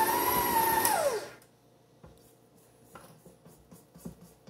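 KitchenAid Professional 5 Plus stand mixer running with a steady whine as it mixes cookie dough, then switched off about a second in, its pitch falling as the motor winds down. A few faint clicks and taps follow as the steel bowl is handled.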